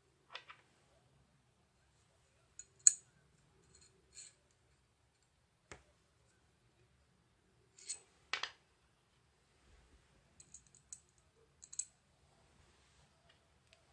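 Metal pan-and-tilt bracket plates handled and fitted together by hand: scattered light clicks and clinks, the sharpest about three seconds in and a few more close together near the end.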